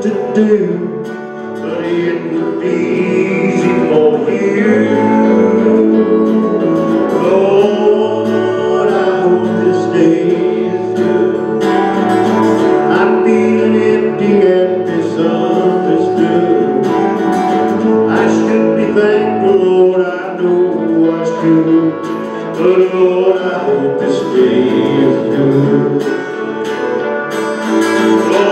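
Live band playing a slow country-gospel song on acoustic guitar, electric guitar and electric bass, with the bass marking steady notes underneath.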